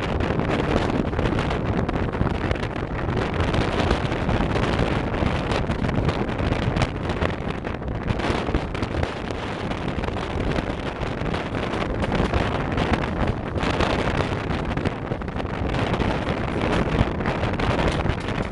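Wind buffeting the microphone, a steady rough noise with a strong low rumble.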